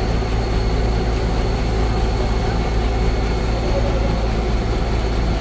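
Hino heavy truck's diesel engine idling with a steady, even low rumble.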